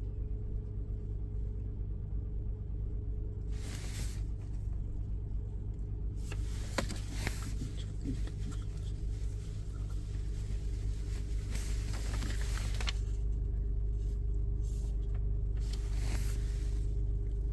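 Honda Pilot's V6 engine idling steadily, heard from inside the cabin, with a few brief rustles of wires and paper being handled.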